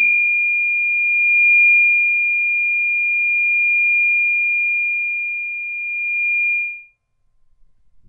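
Audio feedback squeal: a single loud, piercing high tone held steady for about seven seconds, swelling slightly in loudness, then cutting off abruptly.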